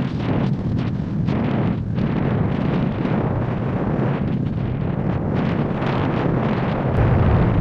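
Rushing airflow buffeting a camera microphone held out from a speedflying pilot in fast flight under a speed wing. The noise is steady and gusty, heaviest in the low rumble, and swells a little near the end.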